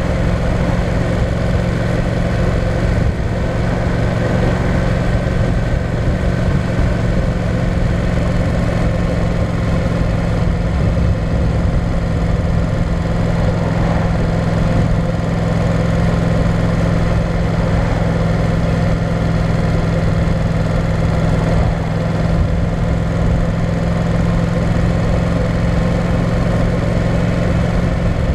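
Yamaha Tracer 700's parallel-twin engine running steadily while the motorcycle cruises, picked up by a camera mounted on the bike.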